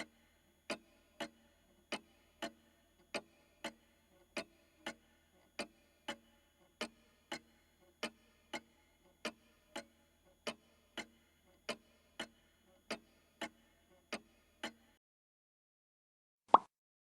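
Old pendulum clock ticking in an even tick-tock rhythm of about three beats every two seconds. The ticking stops about fifteen seconds in. About a second and a half later comes a single sharp, loud hit, the loudest sound here.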